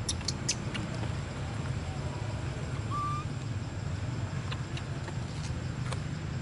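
Steady low outdoor background rumble with a few faint ticks and one short whistle-like note about three seconds in.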